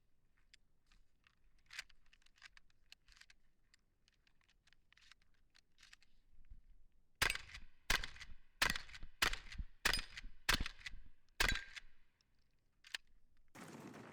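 Benelli Supernova pump-action shotgun firing seven loud shots in quick succession, about two-thirds of a second apart, beginning about halfway in after some light clicking. One fainter crack follows near the end.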